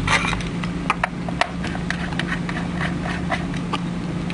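Irregular small clicks and taps of parts being handled and fitted together while a syringe pump is reassembled, over a steady low hum.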